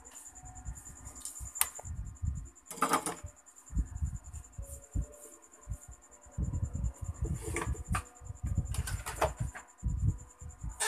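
Handling noise while working on the wiring of a CRT TV: irregular low rumbles and knocks with a few sharp clicks. A steady high trill of crickets runs underneath.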